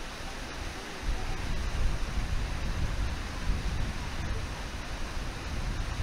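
Steady rush of river water below a waterfall, with wind rumbling on the microphone; it gets a little louder about a second in.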